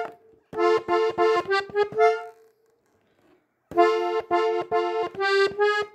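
A diatonic button accordion tuned in F plays two runs of quick melody notes over a held lower note, with a pause of about a second between them.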